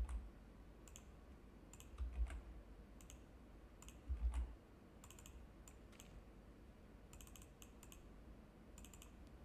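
Faint computer keyboard keystrokes and mouse clicks in scattered little groups, with a dull low thump at the start, about two seconds in and about four seconds in.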